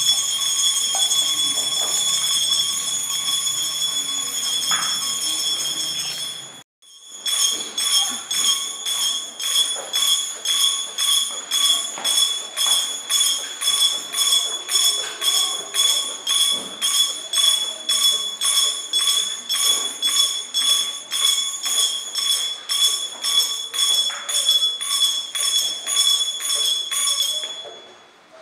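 Altar bells (a cluster of small Sanctus bells) rung at the altar during Eucharistic adoration. They ring without a break, stop abruptly about six and a half seconds in, then are shaken again in fast repeated strokes that die away near the end.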